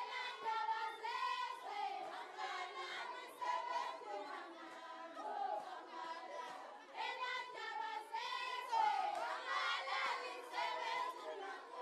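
A large group of girls' and young women's voices singing together, a Swazi reed dance song.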